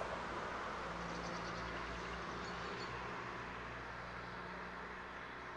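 Train rolling along the track and slowly fading away, a steady rushing noise with faint ticking about one to three seconds in.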